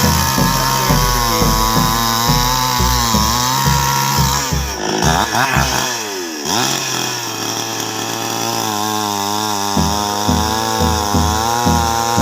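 Chainsaw running and cutting wood, its engine pitch dipping and rising with the load. About six seconds in it drops to a lower speed, then picks up again near the end.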